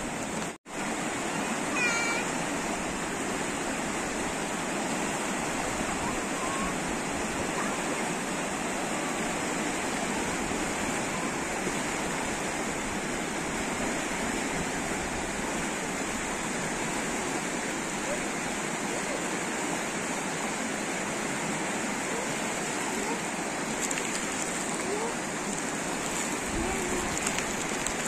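Fast river rushing over shallow rapids: a steady, full sound of running water that cuts out for an instant about half a second in.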